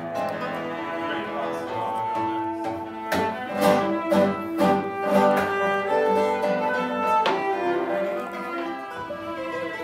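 A cello and a classical guitar playing together: long bowed cello notes over plucked guitar notes.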